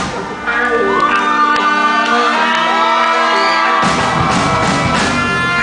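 A band playing live, holding sustained notes while voices whoop and shout. The low end and drums drop out, then come back in with loud hits about four seconds in.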